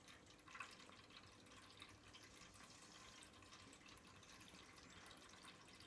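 Near silence: faint room hiss with a few soft ticks, one slightly louder about half a second in.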